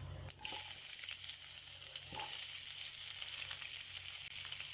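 Chopped onion sizzling in hot oil in a pan, the sizzle starting about half a second in and holding steady, with a couple of light knocks.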